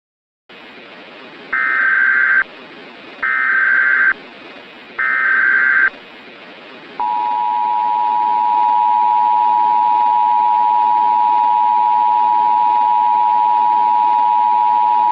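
Emergency Alert System broadcast tones over a steady hiss: three short bursts of SAME header data tones, then, about seven seconds in, the steady two-tone EAS attention signal.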